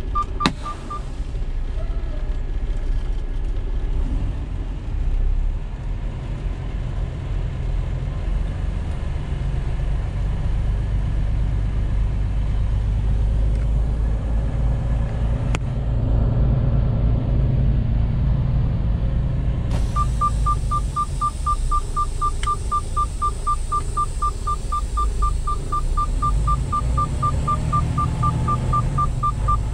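Freightliner semi truck's engine rumbling steadily in the cab, with a rapid high electronic warning beep, about four beeps a second, that stops just after the start and comes back about twenty seconds in.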